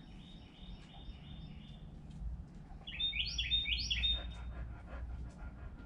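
A small songbird singing: a run of quick, repeated high chirping notes, then a louder run of the same notes about three seconds in.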